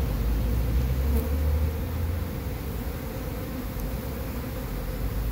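A freshly shaken honeybee swarm buzzing as the bees crawl up into a straw skep, with a steady low rumble that is stronger for the first couple of seconds.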